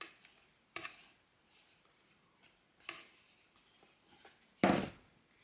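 A few faint taps and clicks from handling kitchenware and food, then one louder short knock near the end.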